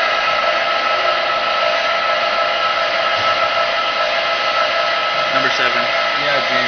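CNC vertical milling machine running: a steady, loud whir with several steady whining tones over it, unchanging throughout.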